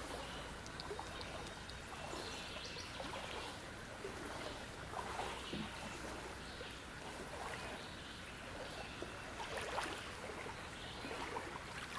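Shallow creek water running and trickling, a steady wash with soft, uneven splashing.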